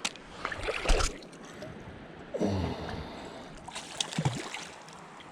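Irregular splashing and sloshing of water as a hooked trout thrashes on the line, in several bursts over the steady running of a stream.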